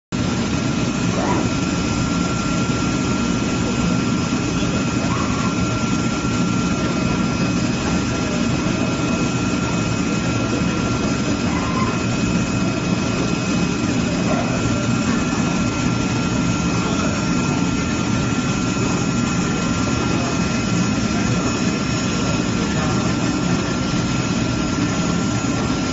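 CNC oscillating-knife cutting machine running while it cuts corrugated cardboard: a loud, steady drone with a constant high whine above it.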